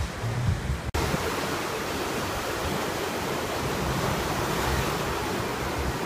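Sea surf breaking and washing up a sandy beach: a steady rush of waves, with a low rumble of wind on the microphone. There is a brief dropout about a second in.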